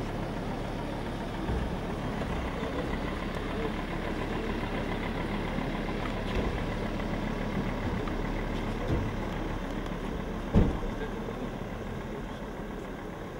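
Crowd murmuring over a vehicle engine idling, with a sharp knock about ten and a half seconds in and a softer one about a second and a half in.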